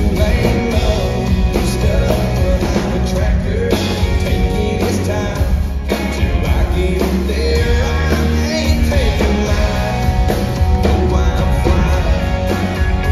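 Live country song, amplified: a man singing lead while strumming an acoustic guitar, backed by a full band.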